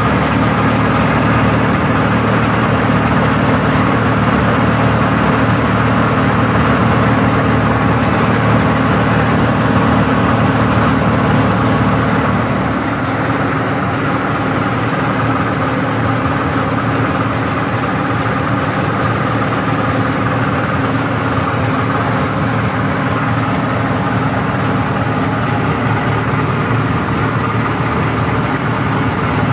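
A garlic bulb-breaking machine running steadily, giving a continuous mechanical hum as it separates bulbs into cloves. The sound drops a little in level about twelve seconds in.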